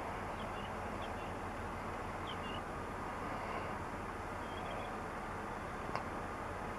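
Airbus A350-900's Rolls-Royce Trent XWB jet engines running at taxi idle: a steady rush with a faint high whine. A few short bird chirps come through, and there is one sharp click about six seconds in.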